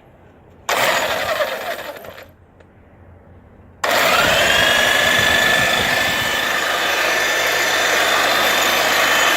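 Makita HM1301 electric demolition hammer run in two trigger pulls: a short run about a second in that winds down with a falling pitch, then a steady run from about four seconds in, its motor whine rising as it comes up to speed and then holding.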